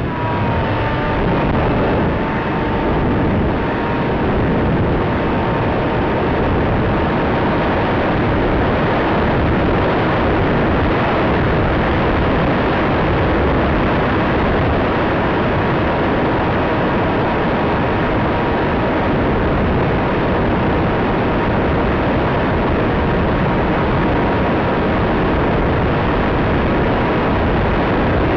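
Bixler RC foam plane in flight, heard through its onboard camera microphone: a loud, steady rush of wind and propeller noise with a faint, steady whine from its electric motor.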